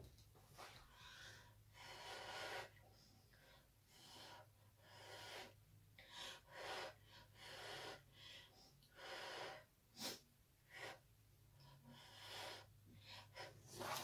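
About fifteen short, faint puffs of breath blown by mouth onto wet acrylic pour paint to push it across the canvas, each under a second, with short pauses between. A faint steady low hum runs underneath.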